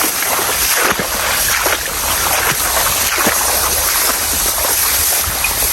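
Steady rushing and sloshing of moving water, with many small splashes.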